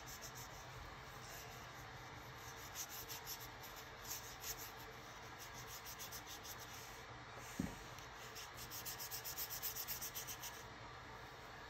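Watercolor paintbrush bristles rubbing on paper in short, faint, repeated strokes, with a quicker run of strokes near the end. A single sharp tap comes about two-thirds of the way through.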